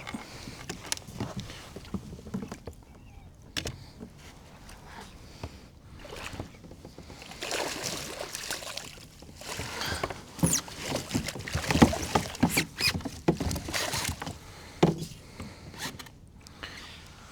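Water sloshing and irregular knocks and rustles around a kayak while a hooked pike is brought in, busiest in the middle of the stretch.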